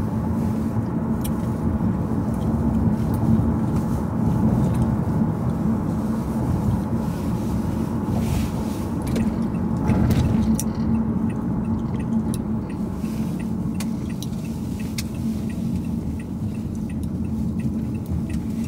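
Inside a moving car: a steady low rumble of engine and road noise, with a few faint clicks and rattles.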